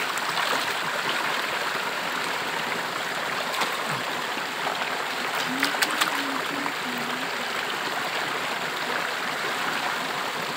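Shallow rocky stream running steadily, with water splashing and dripping off a sluice carpet as it is rinsed out into a metal gold pan. A few light clicks come about halfway through.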